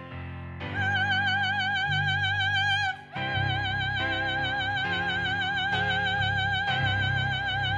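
Female cantor singing with a wide, even vibrato over piano and bass. There is a brief break about three seconds in, then she holds one long high note.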